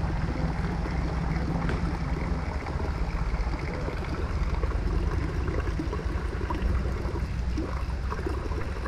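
Drinking-water fountain running steadily, its stream trickling from the spout into a stone basin, over a steady low rumble.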